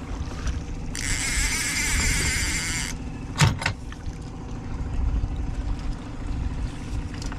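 Boat motor running steadily while trolling, with a fishing reel whirring for about two seconds as line runs during the fight with a hooked muskie. A single sharp knock about three and a half seconds in.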